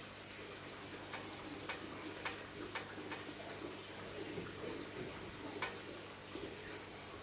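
Close-up eating sounds: a person chewing, with sharp wet mouth clicks and smacks about every half second for the first three seconds and once more near the end.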